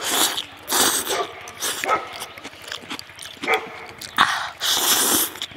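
Loud slurping and sucking as hand-rolled noodles are eaten straight from the rim of the bowl, in a run of hissing bursts each less than a second long.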